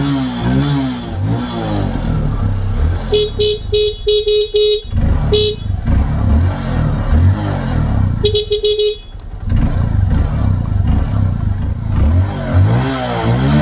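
Honda CRF150L single-cylinder engine running and revved up and down, with the bike's electric horn tooted in quick short beeps: a string of about seven a few seconds in, and a burst of about four about eight seconds in.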